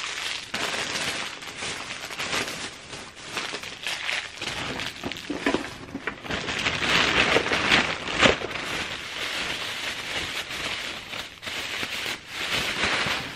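Plastic bag rustling and crinkling as hands rummage through it, in uneven spells, loudest about seven to eight seconds in.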